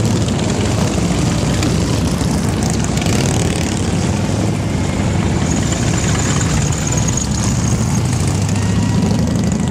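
Several big V-twin cruiser and touring motorcycles riding past close by in a slow procession, their engines making a continuous deep rumble as one bike follows another.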